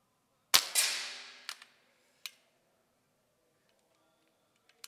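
A single shot from a BSA R10 Gold Star SE .177 pre-charged pneumatic air rifle: a sharp crack about half a second in, a second bang a moment later that trails off over about a second, then a few quieter clicks.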